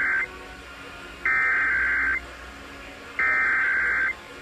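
Emergency Alert System SAME header: three bursts of digital data tones, each about a second long with a second's gap between them, the first already sounding at the start. They carry the encoded header of a Required Monthly Test.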